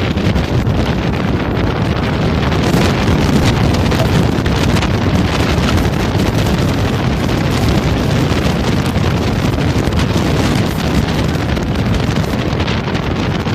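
Steady wind buffeting on a helmet-mounted camera's microphone as a harness-racing sulky moves along the track, with frequent small knocks and rattles throughout.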